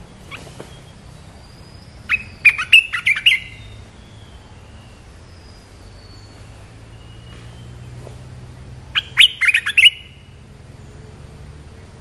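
Olive-winged bulbul singing, as from a caged decoy bird: two short bursts of quick chattering notes, about two seconds in and again about nine seconds in.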